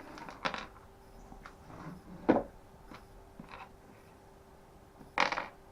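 A few short clicks and knocks as a string trimmer's parts are handled and worked apart by hand, the loudest a little over two seconds in and another near the end, over a faint steady hum.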